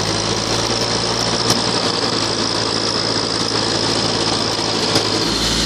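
Kubota tractor engine running steadily while driving the fan of a Grapemaster Blast airblast sprayer, which blows with a steady high whine over a rush of air. There are two sharp ticks, one about a second and a half in and one near five seconds. Just after five seconds a deeper rumble comes in and the whine drops slightly in pitch.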